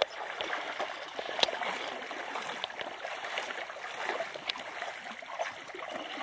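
Canoe paddle blade sculling back and forth in a continuous figure-eight beside the hull, a steady swishing and gurgling of churned water, with a few sharp clicks, the loudest about a second and a half in.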